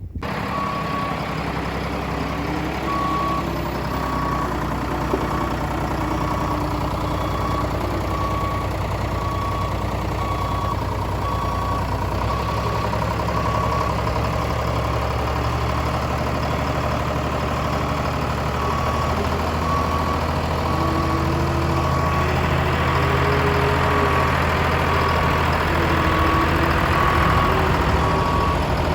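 Diesel engine of a heavy vehicle running while its backup alarm beeps steadily, about once a second. The engine pitch rises and falls in the last third.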